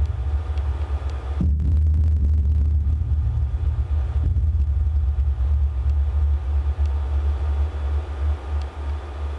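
Amplified piezo contact-microphone pickup of metal ceiling wires: a loud, steady low rumbling hum, with a soft knock about a second and a half in.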